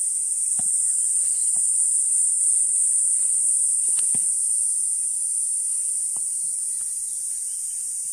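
Insects in a continuous high-pitched drone, with a few faint sharp clicks now and then.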